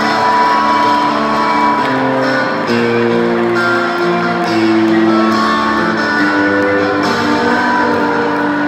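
Live rock band playing guitar-led music, long held chords shifting every second or so, heard from the crowd with the arena's echo.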